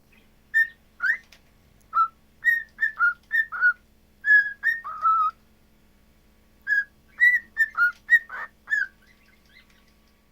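Pet cockatiel whistling a run of short, clear notes, many dipping in pitch, then after a short pause a second run.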